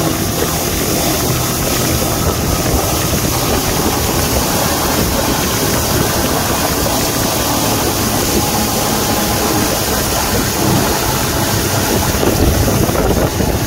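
Motorboat running steadily at speed, its engine mixed with the churning of the wake behind it and steady wind buffeting the microphone.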